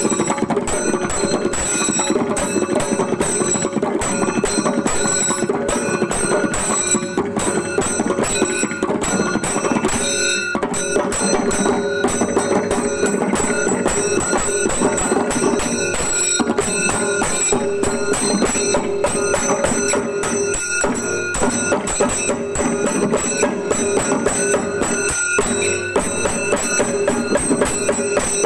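Kerala temple percussion ensemble playing chembada melam: drums beaten together in a fast, dense, unbroken rhythm, with a steady metallic ringing above the drumming.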